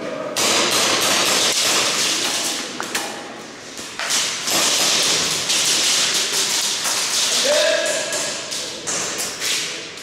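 Airsoft guns firing rapid bursts, a dense clatter of clicks and BB hits in several stretches with short breaks.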